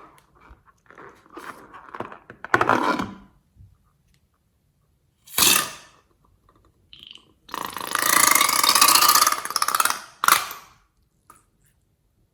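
Slime being squeezed and pressed in the hands, giving crackly squishing sounds in several separate bursts, the longest lasting about two and a half seconds in the second half.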